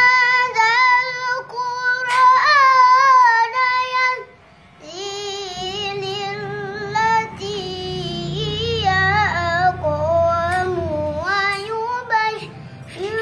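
A young boy chanting Quran recitation in a melodic tilawah style, holding long, ornamented high notes. After a short breath about four seconds in, he carries on at a lower pitch.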